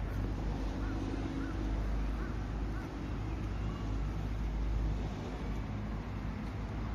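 Outdoor ambience: a steady low rumble, with a few faint, short bird calls in the first couple of seconds.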